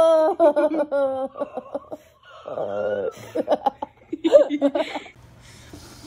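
A person laughing in a run of short bursts, after an exclaimed "oh" at the start; the laughter stops about a second before the end.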